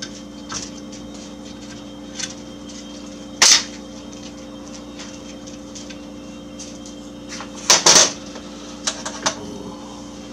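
Short sharp clicks and knocks of tools and motor parts being handled on a workbench: a loud one about three and a half seconds in, a double knock around eight seconds and a few lighter taps. A steady low hum runs underneath.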